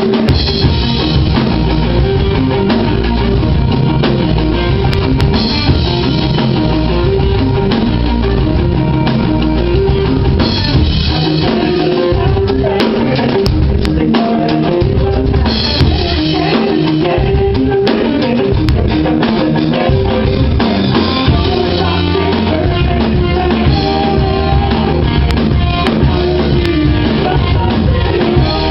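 A live rock band playing an instrumental passage: drum kit and guitars at full volume, with the cymbals swelling in about every five seconds.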